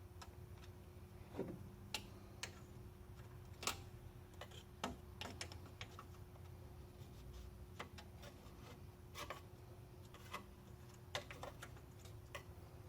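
Scattered light clicks and taps of hand tools being handled at the truck's engine, coming irregularly a dozen or so times, over a faint steady hum.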